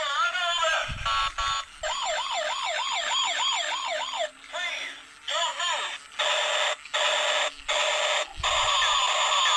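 A battery-operated toy police car's electronic siren sound effect plays through its small speaker, including a fast warbling wail about five times a second. The sound cuts out briefly several times, and the toy is handled with a couple of low thumps.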